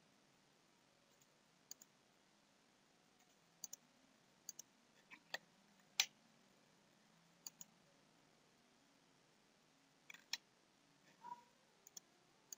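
Computer mouse button clicking over a very quiet background: single clicks and quick double clicks every second or two, the loudest about six seconds in.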